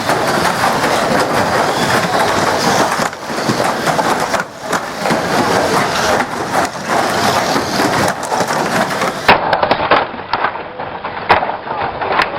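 Model banger cars racing and colliding on a track: a continuous clatter with many sharp knocks and cracks. The sound turns duller about nine seconds in.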